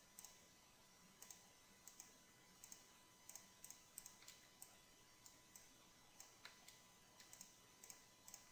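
Near silence with about a dozen faint computer mouse and keyboard clicks at uneven intervals, as faces are clicked into a selection.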